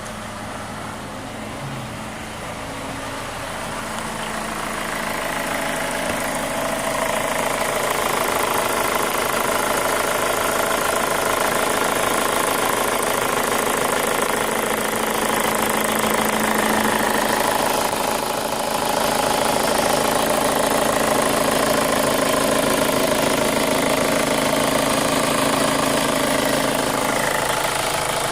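2005 Chevy Cobalt LS's 2.2-litre four-cylinder engine idling steadily, growing louder over the first several seconds. It has a knock that the owner thinks sounds like a lifter.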